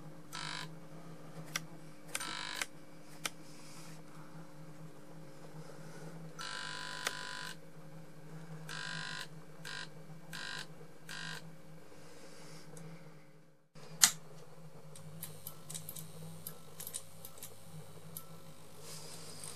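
Electrical hum from a worn-out 20 W fluorescent tube and its ballast, broken by short harsh buzzing bursts as the dying tube struggles. A single sharp click comes about 14 seconds in, after which a lower hum joins in.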